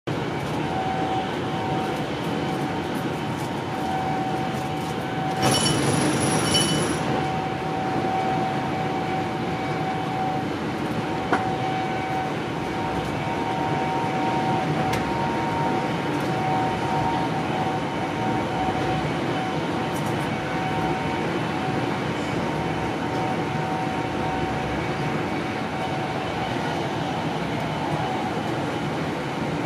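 Inside a Mark 3 passenger coach of an InterCity 125 HST running at speed: steady rolling rumble of wheels on rail with a thin steady whine. A brief louder, shrill passage about five and a half seconds in, and a single sharp click about eleven seconds in.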